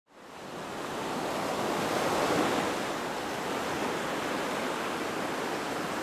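Ocean surf washing in a steady rush, fading in at the start and swelling slightly about two seconds in.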